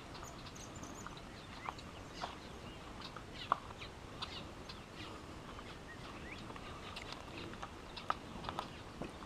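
Faint, scattered short bird chirps and calls over a low background hiss, with an occasional light click.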